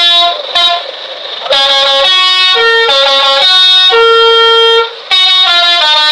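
Bus 'basuri' telolet musical horn playing a tune of held notes that step up and down in pitch, with a quieter hissing pause about a second in and a brief gap near five seconds.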